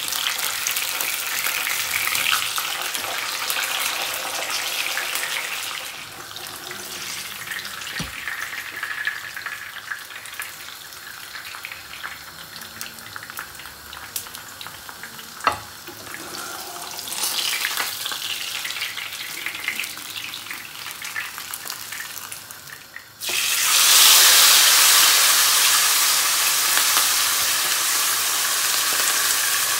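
Food frying in hot oil in a pan, a steady sizzle that eases off for a while. A single sharp tap comes about halfway through. Then, a little over twenty seconds in, the sizzle jumps suddenly much louder and stays loud.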